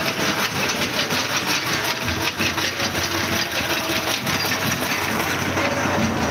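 An engine idling with a fast, steady clatter, over a continuous street din.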